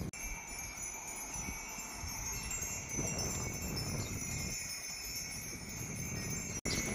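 Wind chimes tinkling with a steady high ringing, over a low rumble.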